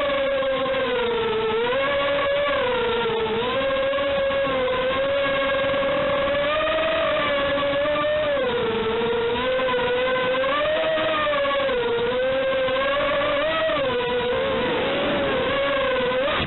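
Small electric motors and propellers of an FPV quadcopter whining, the pitch rising and falling again and again as the throttle changes.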